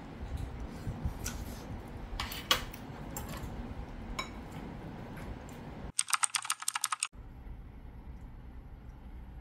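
A metal spoon clinks and scrapes against a ceramic bowl of fried rice, with scattered light knocks. About six seconds in, the loudest sound is a burst of rapid typing-like clicks lasting about a second.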